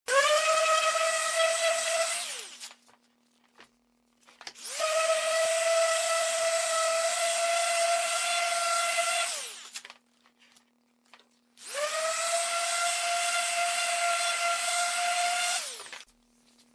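A handheld electric power tool run three times: each run spins up quickly to a steady high whine and winds down when released. The first run is about two seconds, the next two about four to five seconds each.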